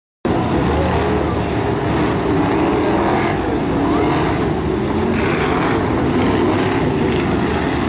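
A pack of BriSCA F1 stock cars' V8 engines revving as they race, many overlapping engine notes rising and falling. The sound cuts in suddenly just after the start.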